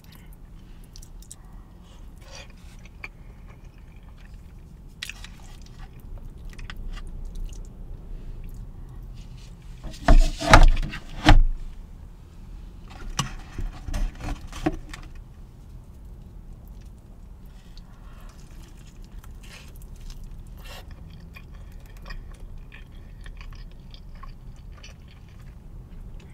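Close-miked eating sounds: chewing of mac and cheese with a fork in a paper bowl, then handling of a cardboard food box and a chicken sandwich. Scattered small clicks run throughout, with a few louder handling noises around ten and fourteen seconds in.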